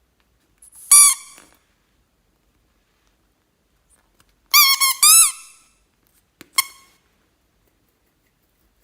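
Five short, high-pitched squeaks: one about a second in, three in quick succession around the middle, and a brief one near the end, each bending slightly in pitch.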